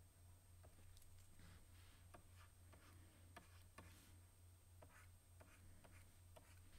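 Near silence: faint, scattered ticks and light scratches of a pen stylus on a drawing tablet over a low steady hum.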